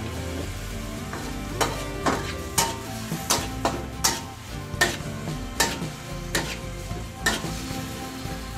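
Pork slices sizzling in a metal wok while a metal spatula stirs and tosses them, scraping the pan and striking its sides in sharp clinks about every half second to second.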